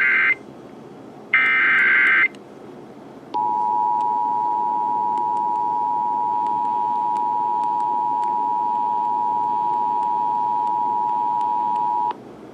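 Emergency Alert System broadcast: the end of one burst of the SAME digital header and then a second full burst, each a harsh warbling data tone lasting under a second. After a short gap comes the EAS two-tone attention signal (853 and 960 Hz sounded together), held steady for about nine seconds and cutting off sharply.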